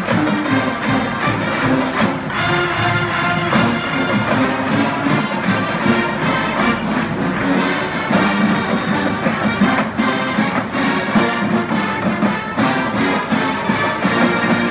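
Marching band playing loudly, full brass with sousaphones carrying the low end over steady drumline hits.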